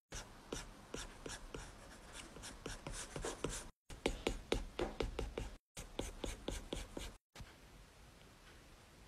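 Quick scratchy strokes of a drawing tool on paper, several a second, broken by three brief dead silences where clips are spliced; the last couple of seconds hold only a faint hiss.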